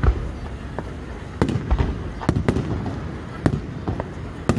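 Aerial fireworks shells bursting: about seven sharp booms at irregular intervals, with smaller pops and crackling between them.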